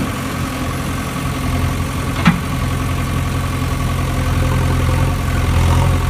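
An engine idling steadily with a low, even hum, with one sharp click about two seconds in.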